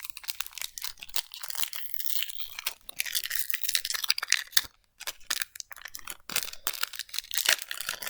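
Foil Pokémon booster pack wrapper being torn open and crinkled in the hands, a run of crackling tears and rustles with a brief pause near the middle.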